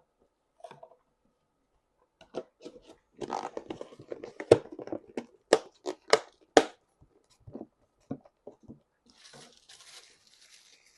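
Close-miked eating sounds: wet chewing and lip smacks in a busy run through the middle, with several sharp clicks, then a soft hiss near the end.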